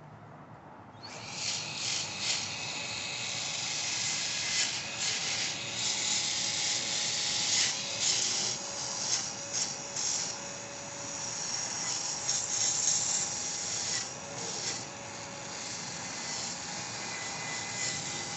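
A power drill with a cleaning attachment scrubbing corrosion off battery cable ends: a steady rasping hiss with a faint motor whine, starting about a second in and swelling and easing as the cable is pressed against it.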